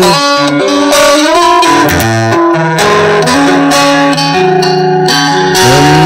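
Electric guitar playing a slow melodic line of held notes, with pitch slides between some of them.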